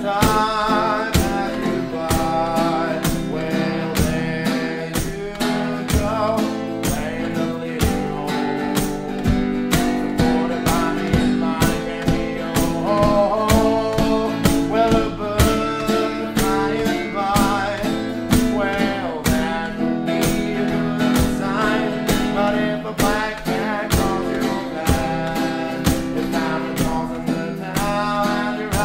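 A man singing over a steadily strummed acoustic guitar.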